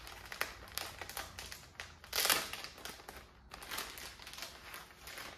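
Clear plastic packaging bag crinkling and rustling as it is handled and opened by hand, in irregular crackles with a louder burst about two seconds in.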